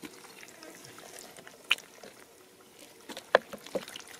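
Bare hands digging and squelching through wet mud, with three short wet slaps, the loudest about three seconds in.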